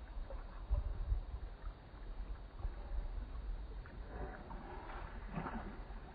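Water sloshing and splashing from a dog paddling as it swims, over a low rumble that is loudest about a second in. In the second half there are some smeared, drawn-out tones.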